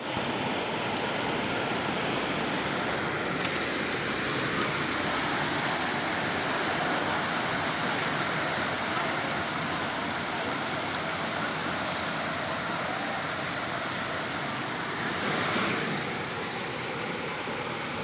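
Rain falling steadily, an even hiss of water with no let-up; about sixteen seconds in the sharpest part of the hiss softens a little.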